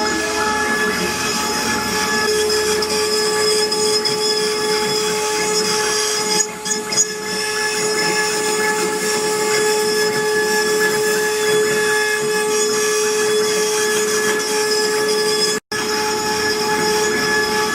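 CNC wood-carving router running, its spindle giving a steady high whine over the rasp of the bit cutting wood. The sound dips briefly about six seconds in and cuts out for an instant near the end.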